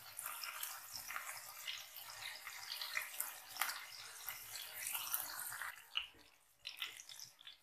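Chopped garlic sizzling and crackling in hot oil in a frying pan as it is stirred with a spatula. The sizzle cuts out briefly just after six seconds in.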